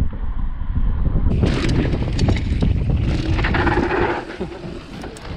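Wind buffeting the microphone of a mountain bike rider's action camera, with knobby tyres rolling over a dirt trail and short knocks and rattles from the bike. The heavy rumble eases off about four seconds in.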